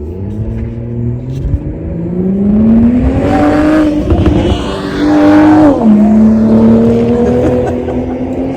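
BMW sports car engine accelerating hard, its pitch climbing for a few seconds and then dropping sharply at an upshift about six seconds in before climbing again. The noise swells as the car passes close by, around the middle.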